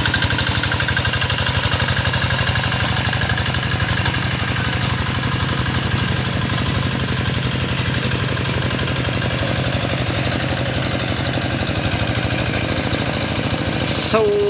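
Diesel engine of a walk-behind hand tractor running steadily with a rapid, even firing beat, typical of harrowing a flooded rice paddy. A brief sharp sound comes near the end.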